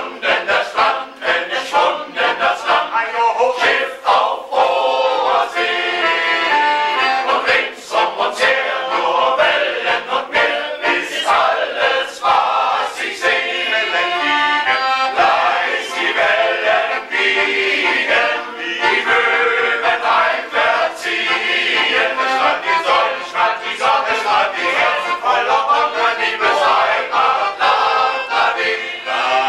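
Music: a male-voice choir singing.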